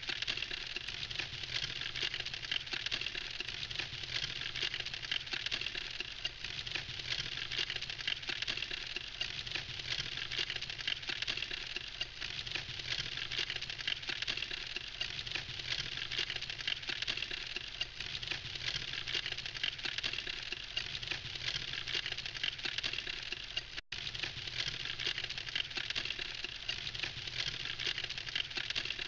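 Wood campfire crackling steadily, a dense run of small sharp pops and snaps from the burning logs.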